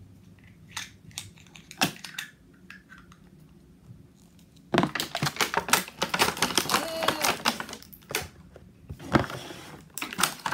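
Clear plastic toy packaging being handled and pulled apart, crinkling and crackling: a few separate clicks at first, then a dense run of crackling about halfway through and another short burst near the end.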